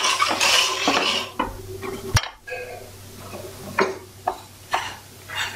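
A spatula scraping and stirring sugar crystals in water around a non-stick frying pan, a gritty scrape. From about two seconds in it is quieter: a wooden spatula stirring and scraping roasting gram flour in a pan, with a few short knocks.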